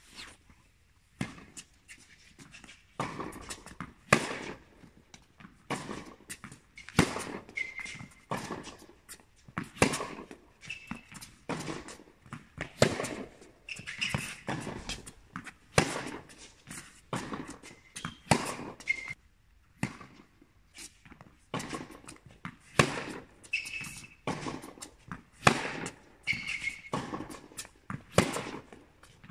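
Tennis rally: racket strikes and ball bounces as sharp pops about once a second, echoing in a large indoor hall, with short squeaks of shoes on the hard court between them.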